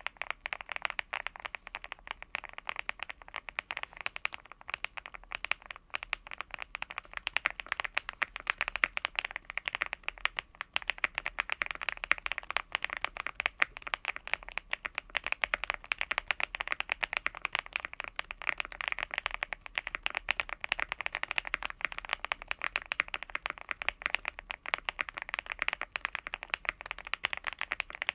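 Continuous fast typing on a Cidoo V75 Plus aluminium mechanical keyboard with lubed Akko Crystal Wine Red linear switches and Domikey x JU Jade keycaps: a steady stream of many keystrokes a second.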